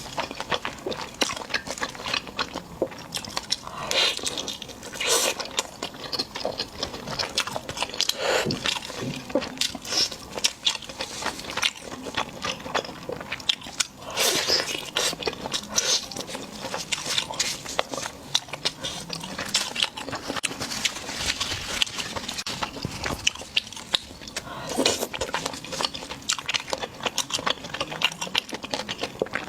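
Close-miked eating: a person biting and chewing crunchy food, with dense, irregular crisp crunches and crackles throughout.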